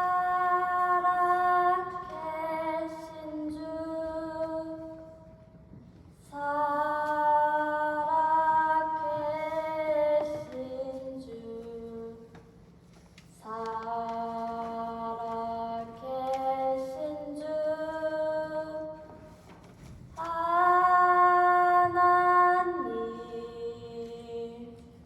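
A female voice singing in four phrases, each opening on a loud held note and stepping down in pitch.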